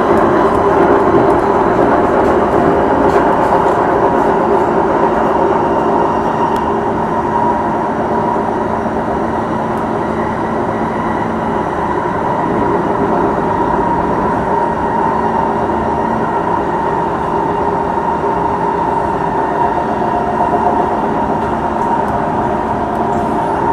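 Singapore MRT East-West Line train heard from inside the carriage while running along the track: a steady rumble of wheels on rail with a faint steady hum underneath.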